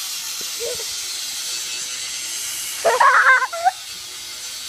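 A steady hiss throughout, with a short, loud vocal outburst like a shout about three seconds in.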